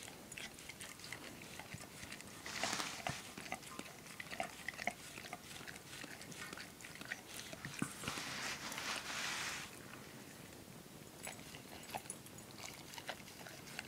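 A dog licking and nosing at a muffin in a stainless steel bowl: many small wet clicks and knocks of tongue and muffin against the metal. Two longer breaths through the nose come about three seconds in and again around eight seconds in.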